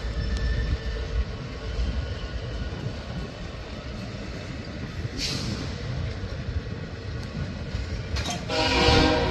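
Norfolk Southern passenger cars rolling past with a steady low rumble of wheels on rail, and a brief hiss about five seconds in. Near the end a locomotive horn sounds, the loudest thing here.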